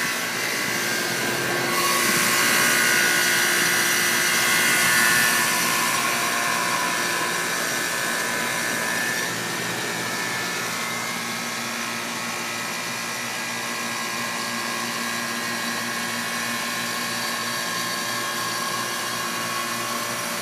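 Guardian 4-ton central air-conditioner outdoor unit running just after switching on: a steady hum with a rushing fan, a little louder for a few seconds near the start.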